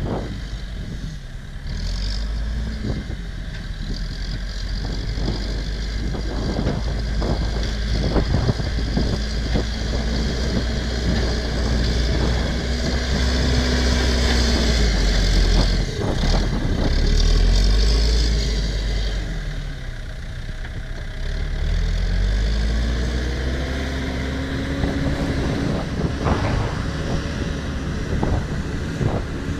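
New Holland B95 backhoe loader's diesel engine working as the front bucket pushes dirt, its pitch rising and falling several times with the throttle. It is loudest around the middle, as the machine comes close. Scattered knocks and clanks from the bucket and dirt run throughout.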